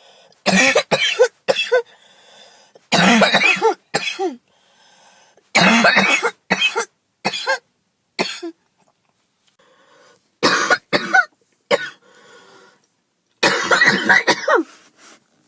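A girl coughing in five fits of three or four coughs each, with quiet breaths between the fits.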